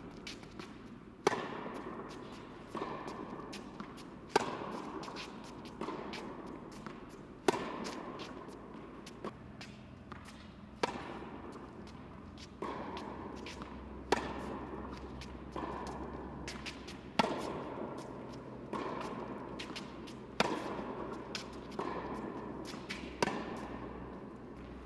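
Tennis ball being hit back and forth in a baseline rally on an indoor hard court: a sharp racket-on-ball pop about every one and a half seconds, louder and fainter hits alternating, each ringing briefly in the hall's echo.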